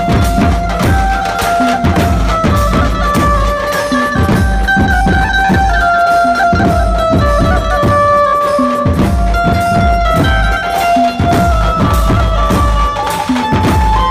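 Dhumal band playing loud folk music: a lead melody of held notes stepping up and down over heavy, driving drum beats.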